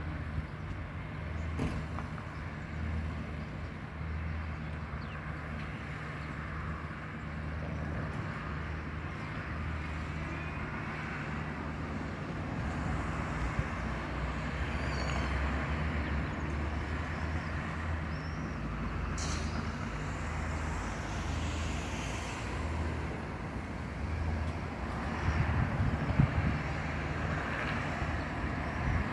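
Steady urban street background: distant road traffic with a constant low hum.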